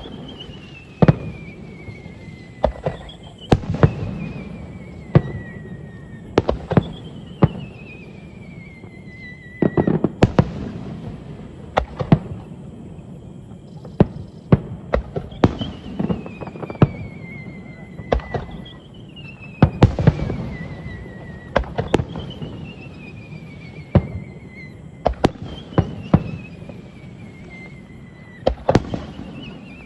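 Fireworks display: a steady run of sharp bangs from bursting shells, with whistles that fall in pitch over a couple of seconds, about every three to four seconds.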